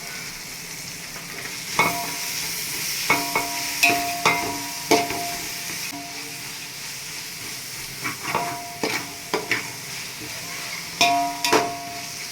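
Onions, green chillies, mint and coriander sizzling in ghee while being stirred, the spoon clinking against the pan in repeated short ringing clinks over a steady frying hiss.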